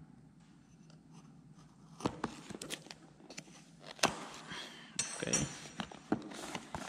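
A small knife blade slitting the seal on a cardboard phone box, with scraping rustles of the cardboard and sharp clicks and clinks of metal against the stone countertop, starting about two seconds in after a quiet start.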